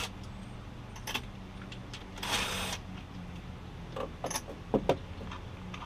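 Small metal clinks of tools and engine parts being handled, a few sharp clicks near the end, and a short hissing burst of an air tool about two seconds in. A steady low shop hum sits underneath.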